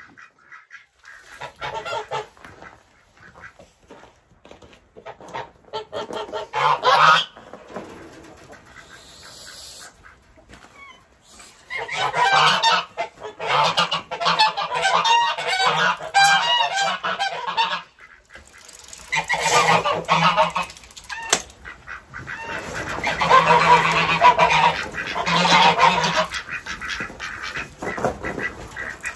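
A flock of geese honking loudly in repeated bouts of many overlapping calls, with short quieter gaps between bouts.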